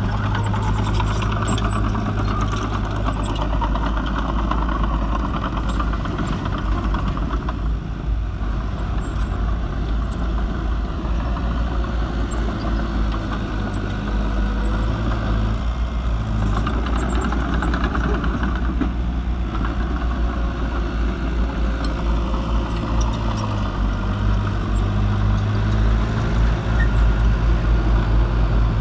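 Small crawler bulldozer's diesel engine running steadily under load while it pushes soil, its note shifting slightly now and then and growing a little louder near the end.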